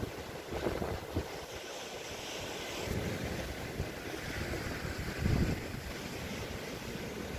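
Wind buffeting the microphone in irregular low gusts, the strongest about five seconds in, over the steady wash of sea surf on the rocks.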